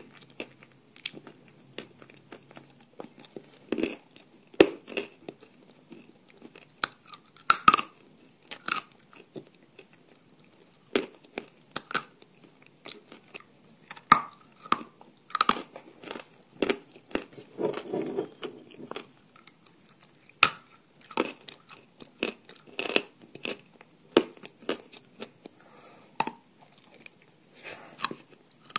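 A person biting and chewing crunchy dry eating clay close to the microphone: a run of irregular crisp crunches and clicks, some sharp and loud.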